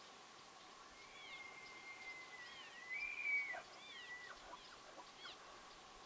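Bull elk bugling: a long high whistle held for about two and a half seconds, rising a little before it breaks off with a sharp drop in pitch. Short high chirping calls sound around it.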